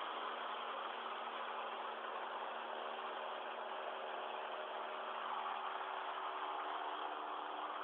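Light propeller plane's piston engine running steadily in flight, heard inside the cabin as a constant noise with a few steady low tones.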